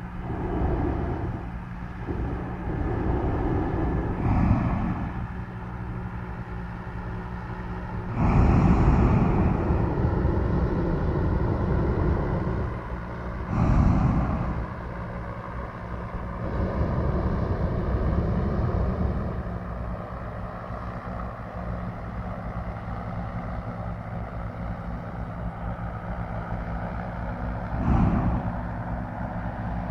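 Hot-air airship's engine and propeller droning steadily, overlaid by loud rushing blasts of its propane burner: a long blast of about four seconds a quarter of the way in, a short one about halfway, a softer swell soon after and a brief one near the end.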